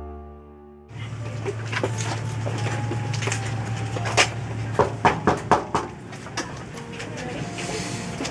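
A tinkling glockenspiel-like music cue stops about a second in. Then comes outdoor noise with a low hum and scattered sharp taps, most of them clustered in the middle: the footsteps of a group walking up to a front door.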